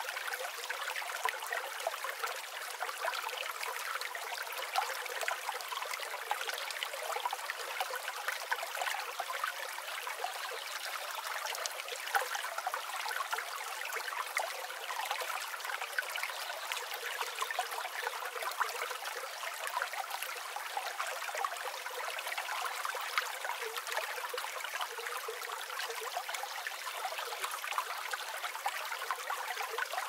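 Water pouring steadily from a hollow log spout into a pond, a continuous splashing and trickling.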